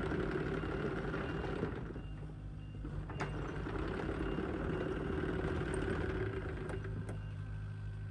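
Diesel engine of a Kubota U55 mini excavator running steadily, easing off briefly about two seconds in, with a sharp click about three seconds in.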